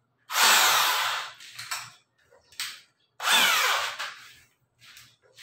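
Corded electric drill with a 10 mm metal drill bit, triggered twice and spinning free in the air, each run starting loud and winding down in falling pitch.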